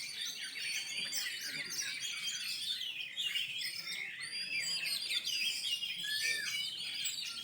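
Several oriental magpie-robins singing at once: a dense, overlapping jumble of fast whistles, chirps and warbling trills.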